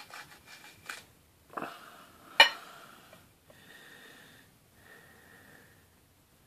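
A knife cutting open a Jay's Peach Ghost Scorpion chilli pod, with a soft knock and then a sharp click about two and a half seconds in. This is followed by a few faint, slightly whistling breaths.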